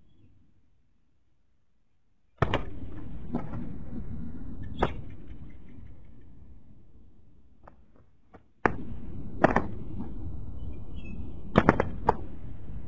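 Sharp knocks and flaps of spotted doves' wings on the ground, over a rushing noise that cuts in suddenly twice and slowly fades.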